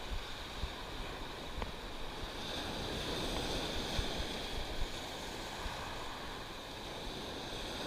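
Surf washing over a rocky shoreline, a steady rush of breaking waves and foam, with light wind on the microphone.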